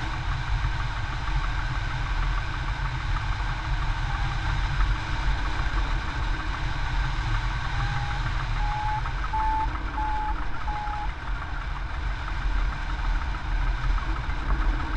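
Steady rush and rumble of air streaming over a hang glider's camera microphone in flight. About 4 seconds in there is one short electronic beep, then from about 8 to 11 seconds a run of five more that step up in pitch and then ease slightly down: a variometer signalling lift.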